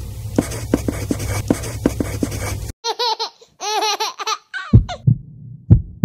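Edited intro sound effects. A noisy stretch with about three clicks a second gives way, about three seconds in, to a high-pitched giggling laugh. Three low thumps follow near the end.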